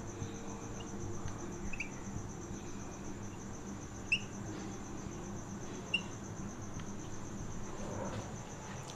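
Marker pen writing on a whiteboard: a few short squeaks, the clearest about four and six seconds in, over a faint steady high-pitched trill.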